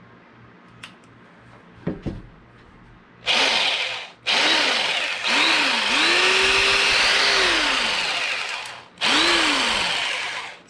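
Black+Decker Smart Select 5.0-amp jigsaw running free with no wood in it, its motor and blade started and stopped in four short runs. Each run spins up and winds down with the squeeze and release of the variable-speed trigger, and the longest lasts about four seconds in the middle.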